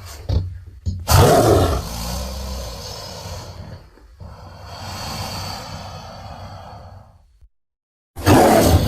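Designed Suchomimus dinosaur roar made from crocodile-family and pitched-down cougar recordings: a few short grunts, then a long roar of about six seconds with a brief break near the middle. After a short silence, another loud call begins near the end.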